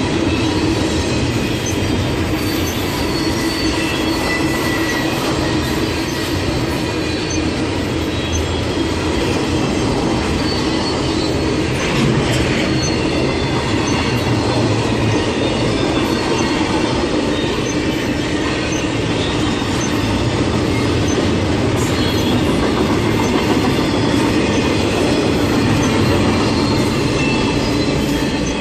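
Railroad cars rolling past steadily: a continuous rumble of steel wheels on rail, with a faint high squeal from the wheels.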